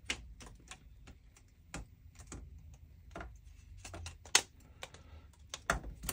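Plastic clicking and snapping as a BMW i3 kidney grille's outer trim ring is slotted and pressed onto the grille insert, its plastic clips and tabs seating. The clicks are sharp and irregular, with the loudest about four seconds in and a quick cluster near the end.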